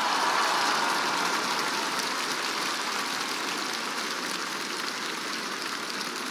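Arena audience applauding, the applause slowly dying down.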